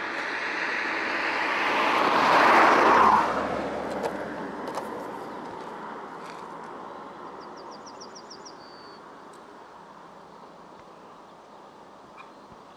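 A car driving past on a country road: its tyre and engine noise swells to a peak about three seconds in, then fades away as it recedes.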